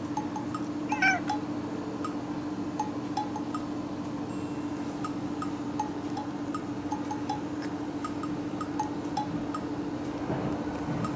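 A domestic cat gives one short meow about a second in, over light background music of scattered plinking notes.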